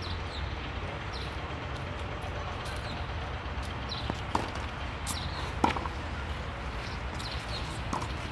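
Tennis balls struck by a racket on a clay court: a few sharp pops, the loudest about five and a half seconds in. Beneath them is a steady low rumble, with short high chirps.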